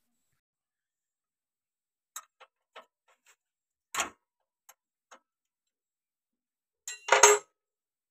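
Scattered light clicks and taps, a duller knock about four seconds in and a louder short clatter near the end: hands working on the fuel line fittings around the common-rail pressure limiter of a Komatsu PC200-8's diesel engine, which is not running.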